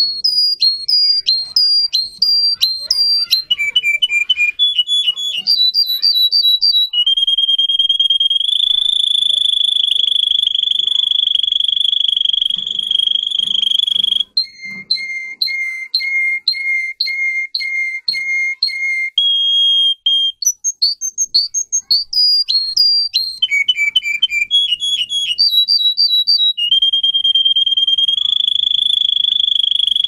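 A domestic canary singing a long song of repeated phrases: quick runs of high chirps, a long ringing held note lasting about seven seconds, then a slower series of evenly spaced two-pitched notes. The held note comes back near the end.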